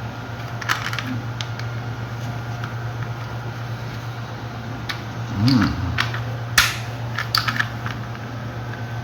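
Hard plastic toy airplane parts clicking and knocking as a wing is pushed into place, with a few scattered sharp clicks, the loudest about two-thirds of the way through. A steady low hum runs underneath.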